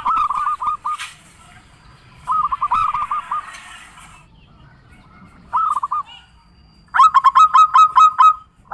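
Zebra dove (perkutut) cooing: several short phrases of quick rolling notes, with the loudest and longest, a run of about ten notes, near the end.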